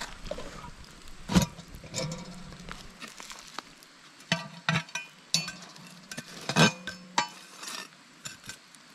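Cast-iron Dutch oven and its wire bail handle clinking and clanking as it is handled on the campfire coals: a string of sharp metal knocks, some ringing briefly, the loudest about a second and a half in and again about six and a half seconds in.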